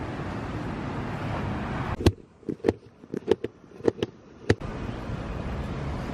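Wind rumbling on the microphone over outdoor street noise, broken in the middle by about two and a half seconds of sharp, irregular clicks and knocks over near quiet.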